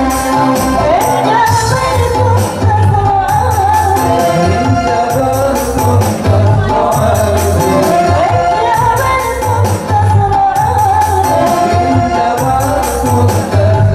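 Live gambus band music: a woman singing an Arabic-style melody over violin, electronic keyboard and hand percussion with tambourine, with a steady pulsing bass.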